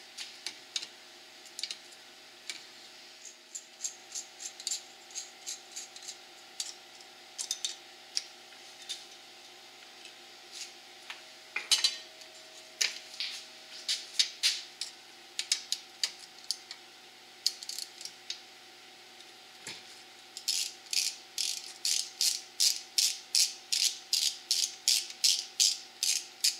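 Hand ratchet wrench clicking in short strokes as rocker-arm fasteners come off the cylinder head of a small engine. The clicks come in scattered groups at first, then in a steady run of about three a second over the last six seconds.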